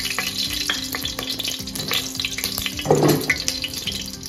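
Ghee and oil sizzling and crackling in a cooking pot on the stove, with a louder surge of sizzling about three seconds in.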